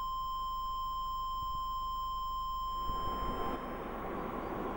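Heart-monitor flatline: one long steady beep, the sign that there is no heartbeat. It fades out about three and a half seconds in as the noise of passing road traffic rises.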